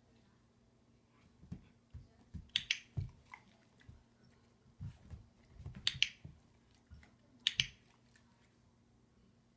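A training clicker clicks three times, a few seconds apart, each a quick double click, marking the dog for stepping onto the balance pods, with a treat following. Soft low thumps of the dog's paws on the rubber pods and carpet come in between.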